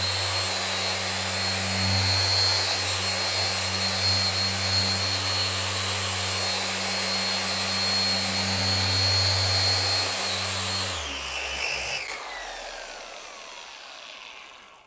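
Porter Cable dual-action polisher running with a 3-inch compounding pad, compounding swirls out of car paint: a steady hum with a high whine. About eleven seconds in it winds down, the whine falling away over a few seconds.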